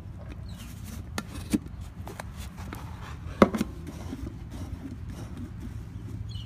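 Handling noise from a coffee-can pinhole camera: a few light knocks and clicks as the can and its lid are handled, the loudest about three and a half seconds in, over a low steady rumble.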